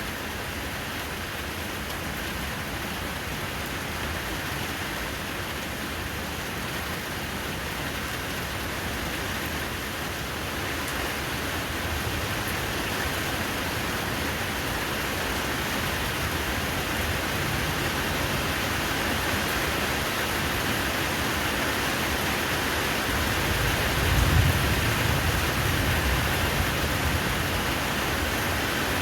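Steady rain falling, growing heavier about a third of the way through, with a brief low rumble about three quarters of the way in.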